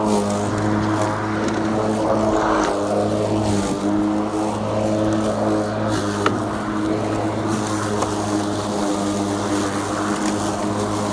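Greenworks Pro 80V 21-inch cordless mower with a brushless motor running steadily, its blade spinning with an even hum.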